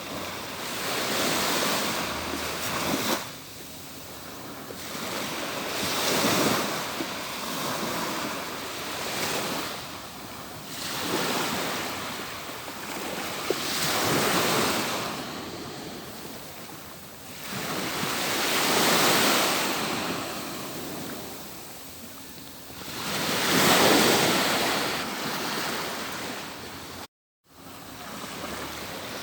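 Atlantic Ocean surf: waves breaking and washing up a beach, each surge swelling and fading every four to five seconds. The sound cuts out completely for a split second near the end.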